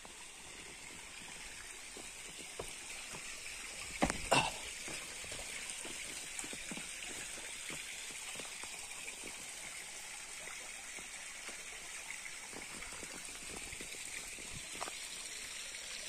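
Shallow forest stream trickling and running over rocks, a steady rushing hiss, with scattered faint clicks and a brief sharp sound about four seconds in.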